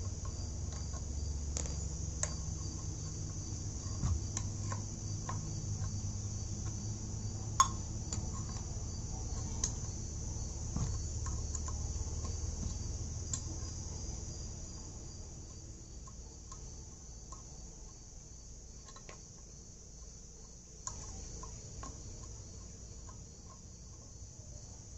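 Steady high-pitched chirring of crickets, with scattered sharp metal clicks and clinks as a pump's non-return valve fitting is unscrewed by hand. A low hum underneath fades out about halfway through.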